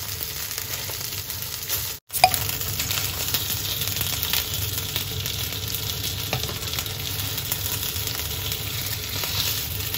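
Skin-on chicken thigh pieces frying in a little oil in a nonstick frying pan, a steady crackling sizzle. The sound cuts out for an instant about two seconds in.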